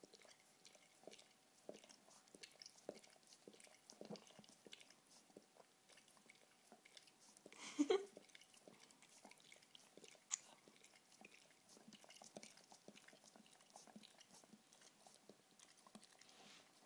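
Weimaraner licking and smacking her mouth, working her tongue at a toffee stuck to her teeth: a run of faint wet clicks and smacks, with one short louder sound about halfway through.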